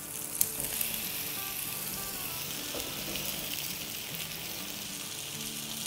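Chicken-mince patties sizzling steadily in shallow oil in a frying pan while they are lifted and turned with a spatula.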